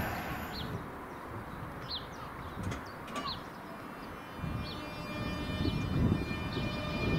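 Class 365 electric multiple unit running in along the platform, a steady whine of several tones growing louder from about four and a half seconds in over a low rumble. Short high chirps repeat about once a second.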